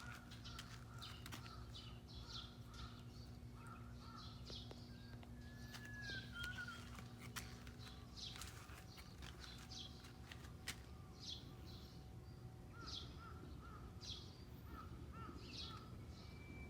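Faint bird calls, many short repeated chirps with some lower paired calls and one gliding call about six seconds in, over a steady low hum.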